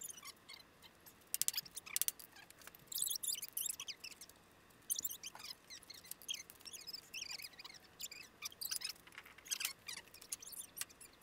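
Steel F-style bar clamps being set and screwed tight on a glued walnut top rail: scattered faint clicks and clinks with short high squeaks.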